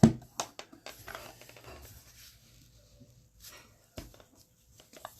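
Gloved hands handling a sealed trading card box: a sharp click at the start, then scattered light clicks and rustling, and one more knock about four seconds in.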